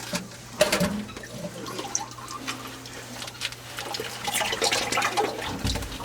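Used engine oil running and splashing into a catch bucket during an oil change, with a few light knocks and clunks among it.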